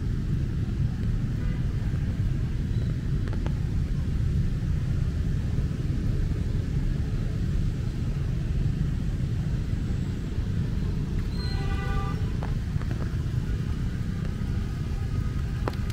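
Steady low rumble of rain drumming on an umbrella, mixed with traffic noise from a road close by. A short pitched sound rings out about twelve seconds in.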